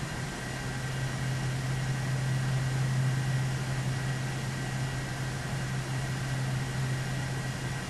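Steady fan noise: an even hiss with a low hum and a faint high whine.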